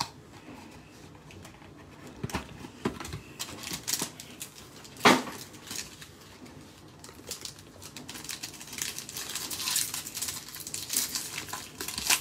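Clear plastic wrapper on a Topps Five Star trading-card pack crinkling and tearing as it is handled and ripped open. There is a sharp click about five seconds in, and denser crackling over the last few seconds.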